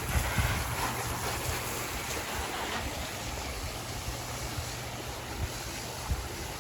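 Steady rush of water from a pondless waterfall, with a few low wind buffets on the microphone.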